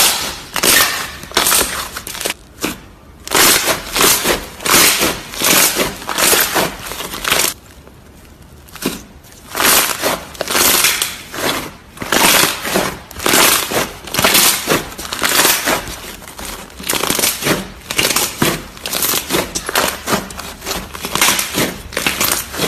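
Hands squeezing and kneading a large lump of slime: a rapid, uneven run of squelching crackles, about two or three a second, with a short pause a little past the middle.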